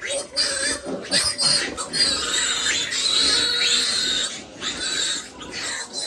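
Pigs squealing loudly in long, high-pitched, overlapping calls, with short breaks about four and a half seconds in and near the end.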